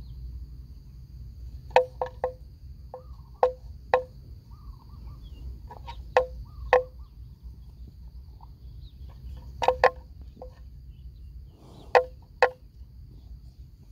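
Water buffalo grazing: sharp snaps of grass being torn off in bites, often two in quick succession, every second or two, over a steady low rumble and a faint high whine.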